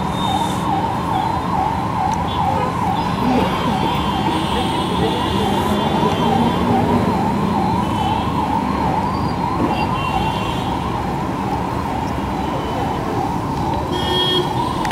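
A warbling siren, its pitch rising and falling quickly about three times a second and holding steady in loudness, over a bed of traffic and crowd noise.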